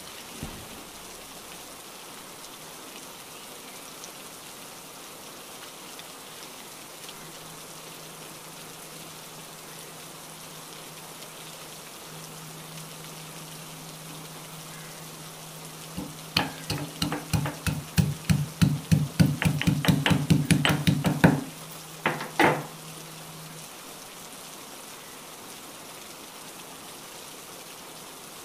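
Ginger being pounded in an iron mortar and pestle: a quick run of sharp metallic strikes, about four a second for some five seconds, then two more blows a moment later. Rain hisses steadily in the background.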